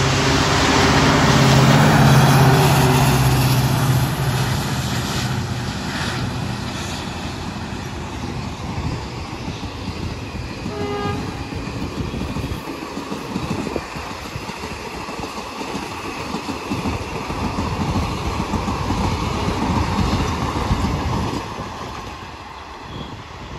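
WDP4D diesel-electric locomotive with a 16-cylinder two-stroke EMD engine passing at speed, its engine loudest in the first few seconds. The long rake of passenger coaches follows, rumbling and clattering over the rails, then fades near the end as the train recedes.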